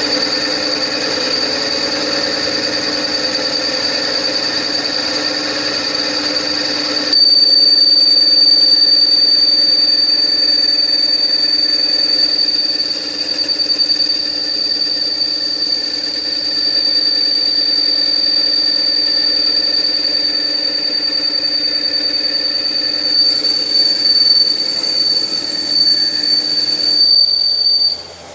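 CNC special-purpose machine working, with a steady high whine over its running noise. The sound steps up louder and changes character about seven seconds in, and cuts off just before the end.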